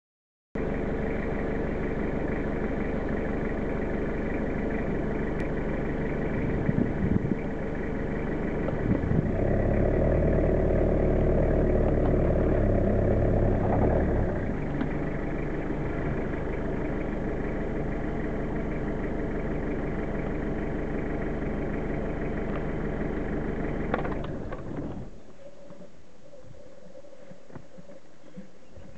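Diesel truck engine idling steadily, running louder for a few seconds around the middle and cutting off about 25 seconds in.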